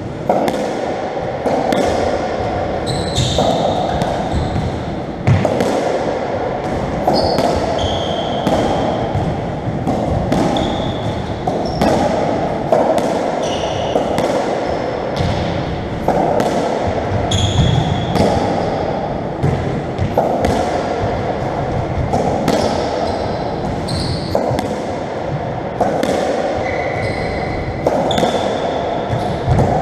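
Racketball rally: the ball cracks off rackets and the court walls about once a second, each hit echoing around the enclosed court, with short high squeaks of shoes on the wooden floor between hits.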